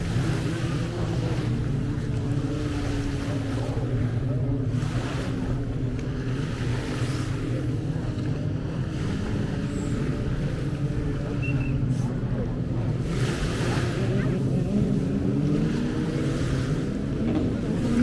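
An engine running steadily at a low pitch that drifts slightly, over the wash of surf that swells and fades a couple of times.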